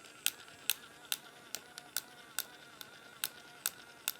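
Small electric motor and plastic gear mechanism of a 2002 Gemmy Homer Simpson singing and dancing toy running with a faint steady whine and a regular sharp click, about two and a half a second. This is the clicking noise whose source the owner cannot place.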